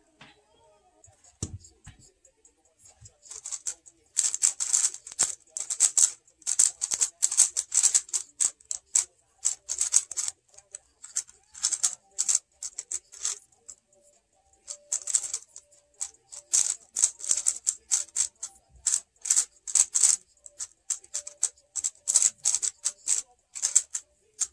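Plastic Megaminx puzzle being turned fast in a speedsolve: rapid runs of clicking, rattling face turns with short pauses between sequences, starting about three seconds in.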